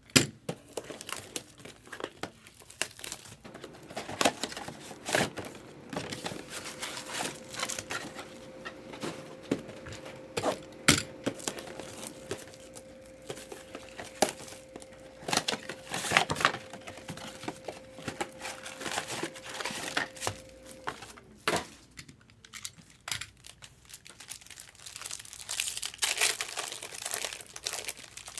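Plastic shrink-wrap and wrappers being torn open and crinkled by hand while sealed trading-card boxes are unwrapped, a run of irregular sharp crackles and rustles. A faint steady tone sounds underneath through the middle and stops a little after twenty seconds in.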